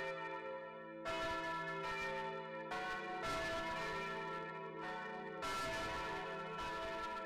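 Church bells ringing: several bells struck in turn, a new strike every one to two seconds, their tones ringing on and overlapping.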